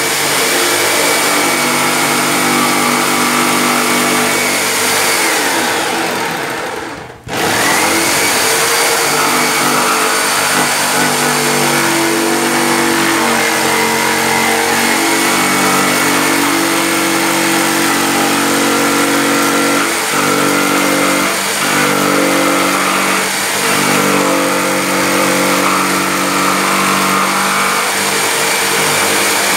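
Corded electric jigsaw cutting into the top panel of a speaker cabinet, its motor and blade running steadily. About five seconds in the motor winds down and stops for a moment, then starts again and goes on cutting.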